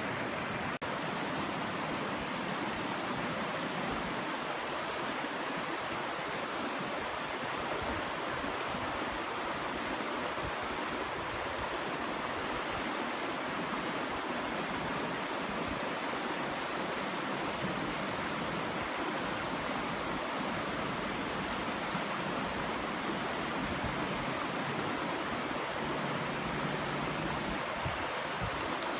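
Mountain trout stream rushing over rocks: a steady, even rush of water.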